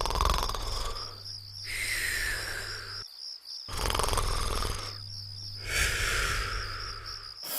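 Cartoon snoring sound effect: slow, rhythmic snores about every two and a half seconds, each a low rumble ending in a falling whistle. A steady high cricket-like trill runs underneath.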